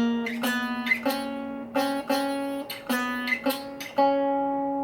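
Egmond archtop guitar, single notes plucked one after another about two a second as the player works up the fingerboard fret by fret, climbing slowly in pitch, the last note left ringing. The notes are a check for high frets after repair; the player finds the second and seventh frets high.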